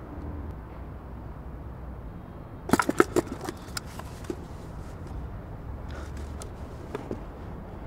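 A small wooden box being handled: a quick run of knocks and clicks about three seconds in, then a few lighter taps, over a steady low outdoor rumble.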